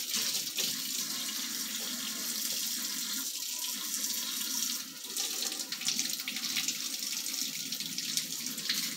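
Kitchen faucet running a steady stream of hot water over a bottle of honey, to warm the honey so it will pour out. The stream runs a little louder from about five seconds in.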